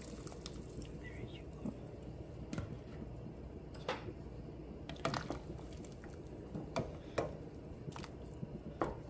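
Pork broth boiling in a stainless steel pot, bubbling steadily with scattered pops and plops as red chile sauce is poured in and stirred through.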